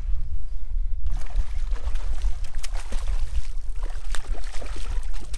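A hooked bass thrashing and splashing at the surface beside a kayak as it is played in, with irregular splashes starting about a second in over a steady low rumble.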